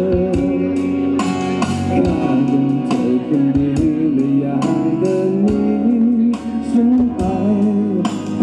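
A live band plays a song: a man sings the melody over electric guitar, bass guitar and a drum kit, with steady drum hits marking the beat.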